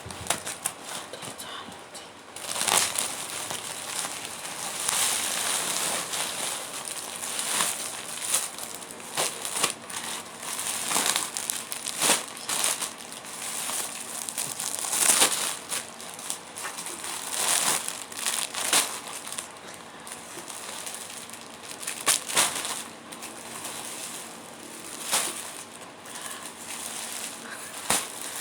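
Packaging being handled and unwrapped: irregular crinkling and rustling, broken by many short sharp crackles.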